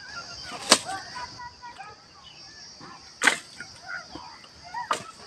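Bundle of dry twigs and thin sticks being handled and set down, giving three sharp cracks a second or two apart.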